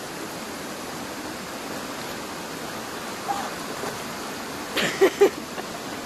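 Small waterfall and stream running steadily over rocks, a constant rushing of water. About five seconds in, a person's voice cuts in briefly with a short exclamation.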